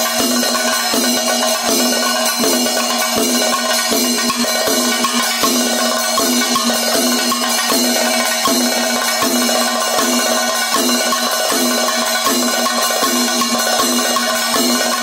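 Kerala keli percussion ensemble playing continuously. Chenda and valamthala drums are struck with sticks and the barrel-shaped maddalam is played with the hands, over a constant ringing of ilathalam hand cymbals. The beat is steady, about two strong strokes a second.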